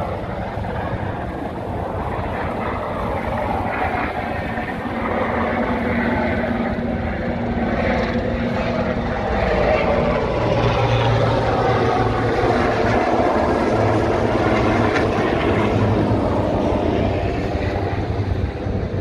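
Helicopter flying low past, its rotor and engine noise growing louder through the first half, holding at its loudest, then easing near the end.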